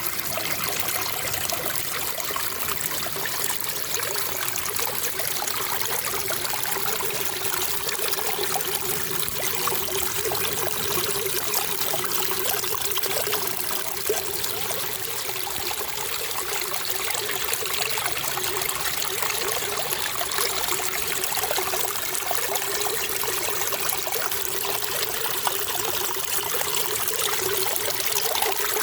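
Running water trickling and splashing steadily, with no pauses or changes.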